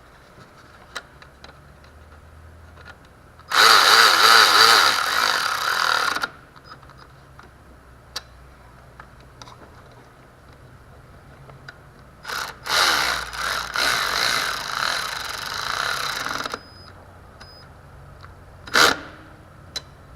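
Cordless power tool running nuts down in two bursts, the first about two and a half seconds long and the second about four seconds, with light clicks of tools between and a short sharp clack near the end.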